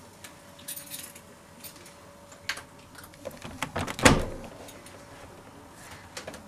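Keys jingling and clicking at the lock of a uPVC front door, with one loud clunk of the lock or handle about four seconds in, then quieter rustles as the door is opened.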